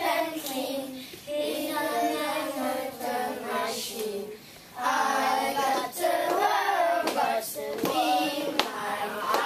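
A group of young children singing a song together, with a brief pause about four seconds in and a few sharp hand claps near the end.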